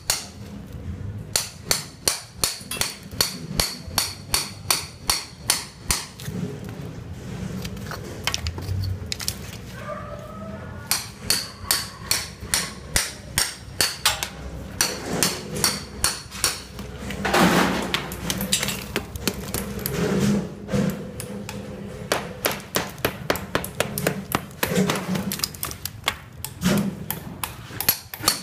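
Hammer striking a chisel held against a brick wall, chipping off old render in quick, regular blows of about three a second, with a few short pauses.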